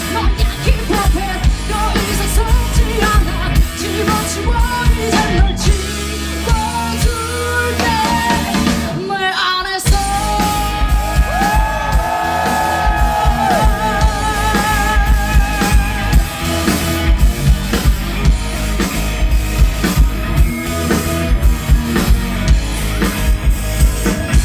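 Live rock band with a female lead singer over electric guitars, bass guitar and drum kit. The band breaks off briefly about nine seconds in, then comes back under a long held note with vibrato.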